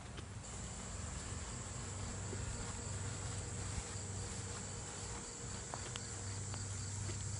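Insects, such as crickets, trilling steadily: a continuous high-pitched buzz that starts about half a second in, with a faint rapid pulsing chirp beneath it, over a low steady hum.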